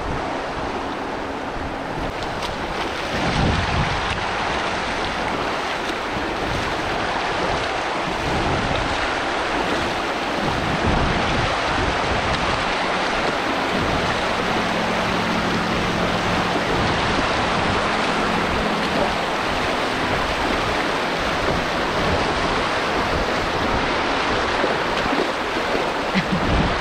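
Fast-flowing river water rushing steadily, with wind gusting on the microphone.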